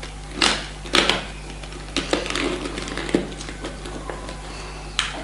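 Plastic clicks, creaks and sharp snaps as the case of a Careland dash cam is pried apart by hand. The loudest snaps come about half a second in, twice around one second in, and again near the end.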